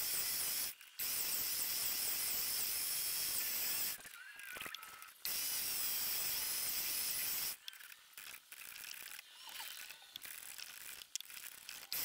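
Benchtop wood lathe running with a cloth pressed against the spinning wood, making a steady hiss. The sound drops out abruptly a few times, for most of the last four seconds.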